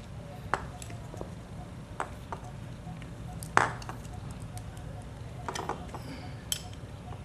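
Metal clicks and clinks of a 10 mm wrench on the propeller nut of an OS 46AXII model-aircraft engine as the nut is worked loose. About five separate clicks, the loudest about three and a half seconds in, over a steady low hum.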